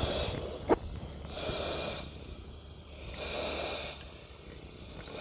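Breathing through an SCBA facepiece: two hissing breaths through the demand regulator, a little under two seconds apart, with a sharp knock under a second in.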